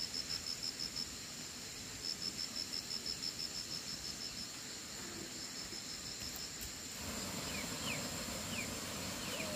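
Insects chirping: a high, even pulsing trill of about eight pulses a second that comes in trains with short gaps, over a steady high-pitched drone. Near the end a few short, high, falling chirps join in.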